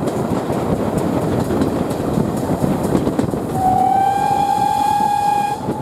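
Steam locomotive whistle of GWR 2-6-0 Mogul 9351 sounding one steady note for about two seconds, starting about three and a half seconds in, given for a trackside whistle board. Under it, the steady rumble of the carriages running on the track, heard through an open window.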